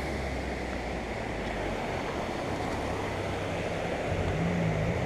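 Steady rushing noise of flowing creek water, with a low hum underneath.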